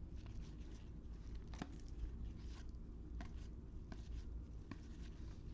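Trading cards being flipped through by hand, with soft sliding swishes and a few light clicks as each card is moved off the stack.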